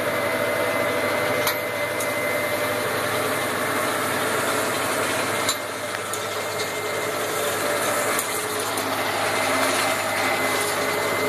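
Massey Ferguson 5455 tractor running steadily under load while raking, heard from inside the cab. A constant mechanical noise with a faint steady whine, and a few light clicks.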